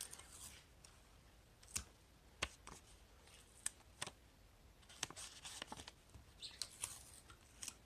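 Faint paper handling: scattered light clicks and a few short rustles of paper.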